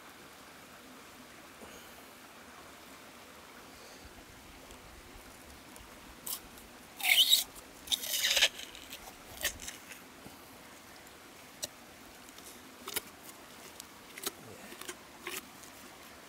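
Leafy vegetables being handled and pushed into a hollow bamboo tube: two loud bursts of rustling and scraping about seven and eight seconds in, then scattered light clicks and taps.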